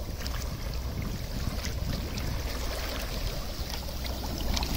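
Volcanic gas welling up through the sea and breaking the surface, a churning water noise full of small pops over a low rumble, growing louder near the end.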